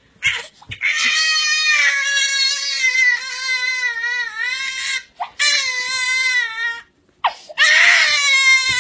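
A baby crying hard for a mobile phone: three long, wavering wails with short breaths between them, the last one the loudest.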